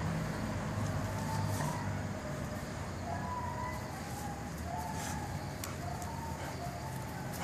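Outdoor background of distant traffic, a steady low rumble, with faint short tones that step up and down over it.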